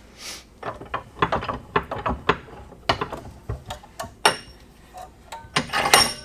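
Metal tools and fork parts clicking and clanking in an irregular run of sharp knocks, with brief metallic ringing after a strike about four seconds in and again near the end.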